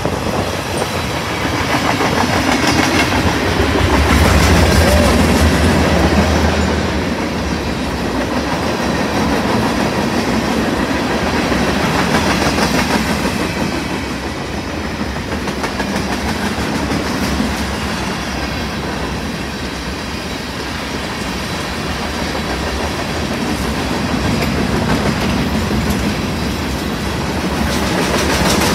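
Freight cars of a Union Pacific manifest train rolling past close by: steady steel-wheel-on-rail noise, swelling loudest about four to six seconds in.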